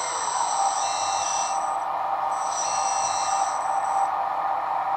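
1:14 scale RC hydraulic excavator running: the electric hydraulic pump hums steadily under the simulated heavy-machine engine sound from its sound module, with a higher whine coming in and dropping out twice as the hydraulics are worked.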